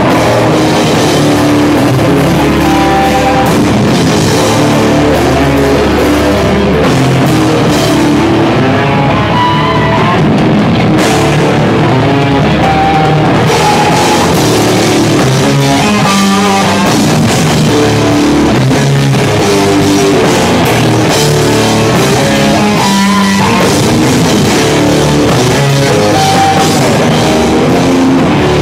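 Hardcore punk band playing loud live: drum kit with cymbals, distorted electric guitar and bass guitar.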